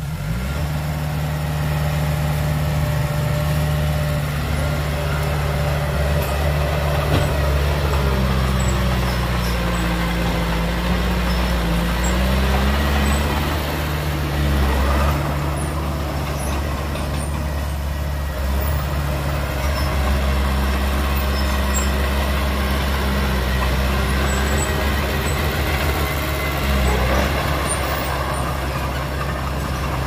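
Heavy diesel engine of earthmoving machinery running steadily under load, its pitch stepping up and down several times as the engine speed changes.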